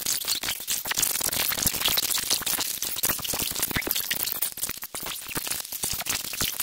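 Hard plastic toys and ball-pit balls clattering and rattling as they are handled, a dense, irregular run of quick clicks.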